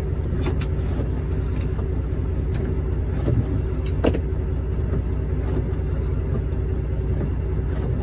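Semi truck's diesel engine running steadily, heard from inside the cab as a low hum, with a few scattered clicks and knocks from the cab.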